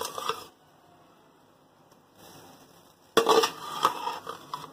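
Steel serving spoon scraping and knocking against a stainless steel bowl while cooked basmati rice is scooped out, with a sudden loud clatter about three seconds in.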